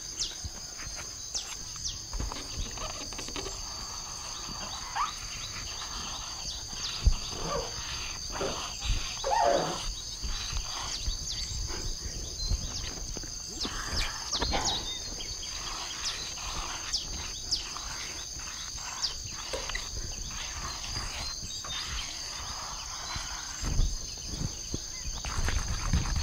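Insects droning steadily at a high pitch, with scattered short scrapes and knocks as a brick is rubbed across a car's metal bonnet.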